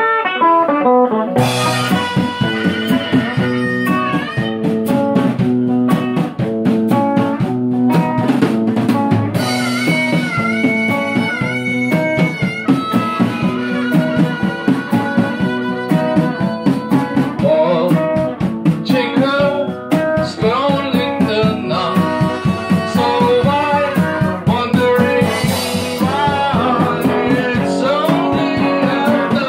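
Electric guitar and drum kit playing a slow blues-rock song. The guitar starts picking a melody alone, and the drums come in about a second and a half in, keeping a steady beat.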